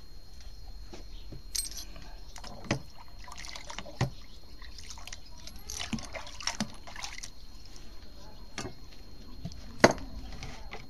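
Water splashing and dripping in a plastic bucket as a metal spit rod is dipped and moved about in it. Several sharp metal clicks and knocks are spread through it, the loudest near the end.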